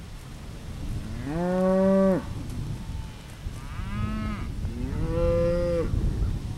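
Cattle mooing, calling to be fed: three calls, a long rising one about a second in, a shorter one near four seconds, then another long one about five seconds in.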